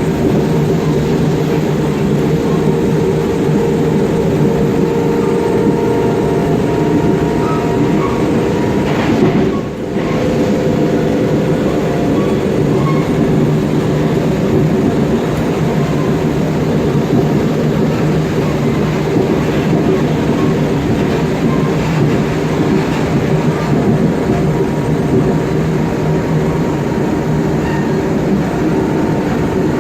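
Traction motors of a Mafersa-built CPTM Série 1700 electric multiple unit, car 1726, growling as it runs along the line, heard inside the passenger saloon. Steady motor tones ride over the rumble of the wheels on the rails, with a brief dip about ten seconds in.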